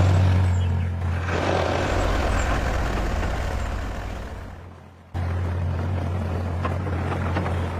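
A motor or engine running with a steady low hum under a wide hiss. It fades down, cuts off abruptly about five seconds in, and the same hum starts again abruptly.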